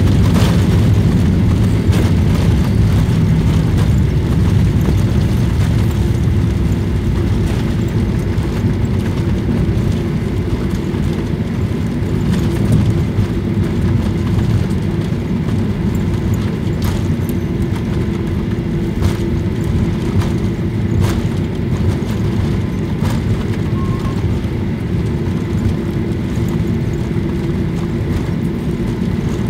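Cabin noise of a Boeing 737 jet airliner rolling out on the runway just after touchdown: a heavy, steady rumble of engines and wheels that eases gradually as the aircraft slows, with a steady hum coming in and a few faint clicks.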